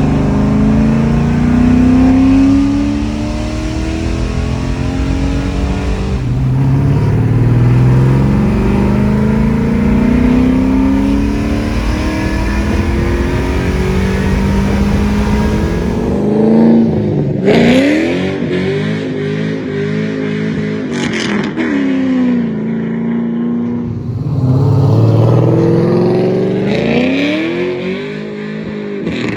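LS V8 in an S10 pickup, breathing through 1 3/4-inch long-tube headers. For the first half it accelerates, its pitch climbing, falling back and climbing again. After that it is revved up and back down twice, with a few sharp cracks near the first rev.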